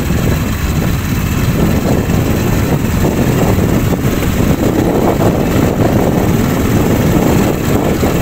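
Motorcycle engine running steadily at riding speed, with a rough, uneven rumble of wind on the microphone.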